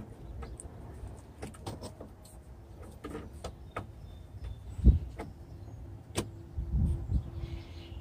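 Clicks and knocks of a truck windshield wiper arm and blade being handled and fitted onto the cowl, with one heavy thump about five seconds in. A faint steady hum joins about three seconds in.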